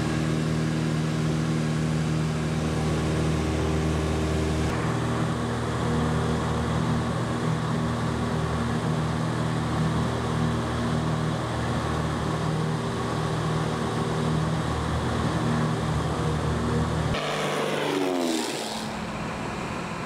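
Propeller aircraft engine droning steadily inside the cabin, changing tone about five seconds in. Near the end the drone cuts off abruptly and a falling sweep in pitch follows, leaving a quieter hiss.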